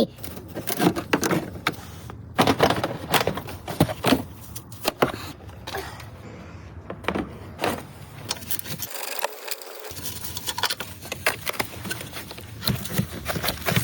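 Irregular clicks, clinks and knocks of hand tools and metal parts being handled while working on a car.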